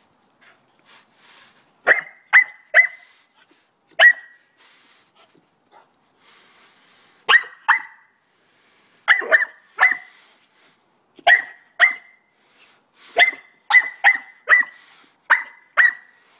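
Pit bull puppy barking: short, sharp, high-pitched barks in clusters of one to four, with pauses of a second or two between the clusters.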